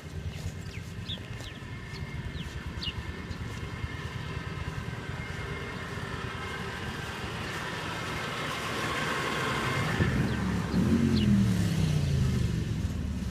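A motor vehicle approaching and driving past, growing louder and loudest about eleven seconds in, its engine tone falling in pitch as it goes by. Under it is a steady low hum, and a few short high chirps are heard.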